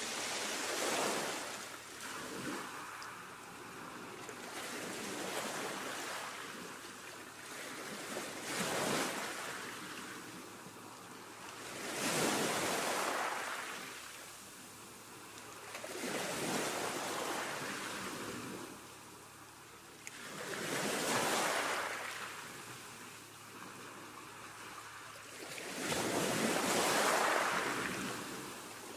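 Ocean-wave noise, swelling and fading about every four seconds.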